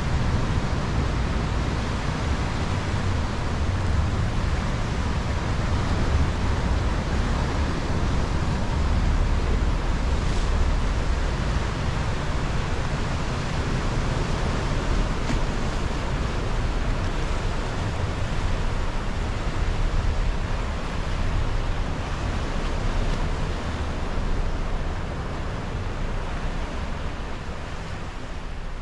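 Steady noise of a car ferry under way: wind buffeting the microphone and water rushing past the hull over a low engine rumble.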